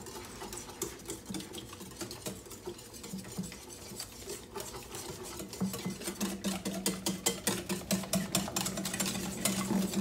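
Wire whisk beating waffle batter in a glass bowl: a quick rhythmic clicking of the wires against the glass, getting faster and louder about halfway through.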